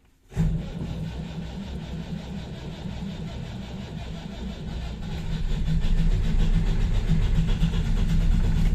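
Boat's diesel engine cold-starting after glow-plug preheat in freezing weather: it fires suddenly about a third of a second in, catching readily, and runs on steadily, growing louder from about halfway through.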